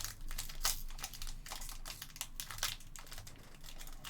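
Trading-card packs being opened and handled by hand: a rapid, irregular run of crisp crinkles and clicks from the pack wrappers and cards.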